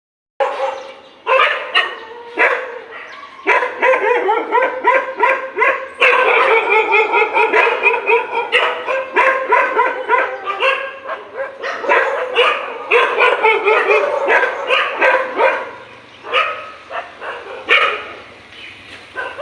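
Dogs fighting, barking rapidly with barks overlapping, then thinning to scattered barks in the last few seconds.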